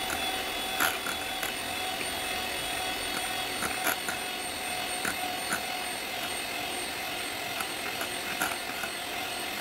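Electric hand mixer running steadily, its twin beaters whipping cream in a glass bowl, with a few short clicks along the way.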